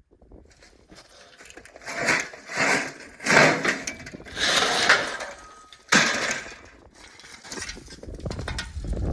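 Sheets of metal siding being handled, with a run of clattering and scraping bursts over several seconds and one sharp clank near the end.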